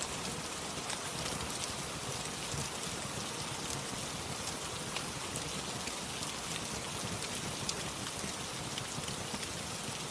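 Steady rain falling, with scattered sharp crackles and pops from a wood fire in a fireplace.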